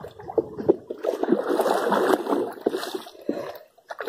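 Water splashing and sloshing for a couple of seconds, dying away shortly before the end.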